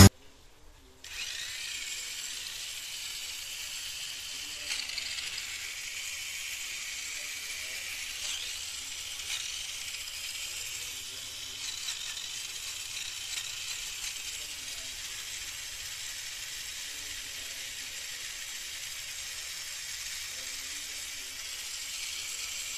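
Tamiya Mini 4WD MA chassis's stock Mabuchi motor and 4:1 gears running with the car held in the hand, wheels spinning free: a steady high whirr, switched on about a second in.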